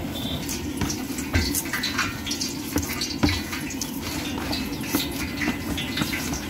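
Gram-flour dough for fafda being kneaded by hand in a plastic bowl: irregular wet squelches and slaps as the fist presses and turns the dough, over a steady low background rumble.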